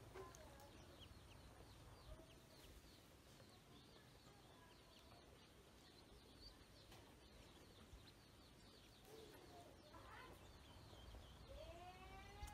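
Ducklings peeping faintly, a steady run of short, high chirps. Near the end comes a lower, longer call.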